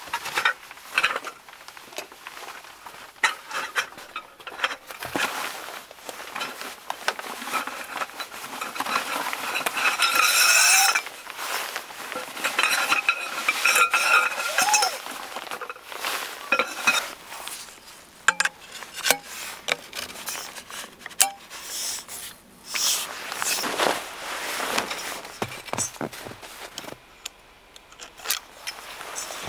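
Camping gear being handled: nylon stuff sacks and tent fabric rustling and scraping, with light clinks and knocks from poles and other equipment.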